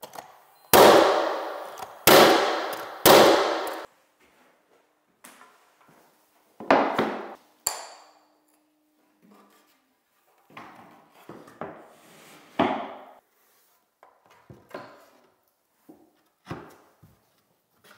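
Three loud, sharp knocks about a second apart near the start, each dying away over most of a second in a bare room. Scattered lighter knocks and clatter follow as wooden base trim boards are handled and set down, with a brief metallic clink about eight seconds in.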